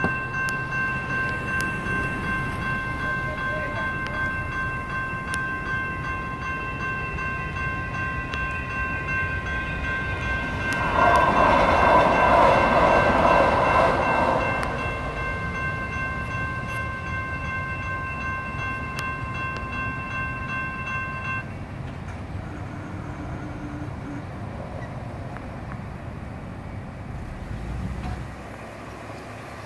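General Signals Type 2 electronic crossing bell ringing steadily, then stopping suddenly about twenty-one seconds in as the crossing gates rise. About eleven seconds in, a louder rush of noise lasting about three seconds comes from the passing light rail train.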